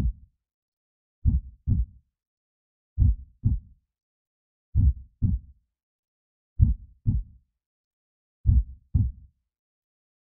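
Heartbeat sound effect: slow, even lub-dub double thumps, one pair about every second and three quarters, with silence between the beats.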